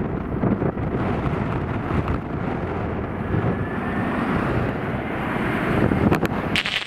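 Gusty wind buffeting the microphone over the engine noise of an Airbus A320 jet airliner on final approach.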